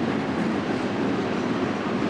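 Cars of a BNSF intermodal Z train rolling past: a steady, loud rumble of steel wheels on rail.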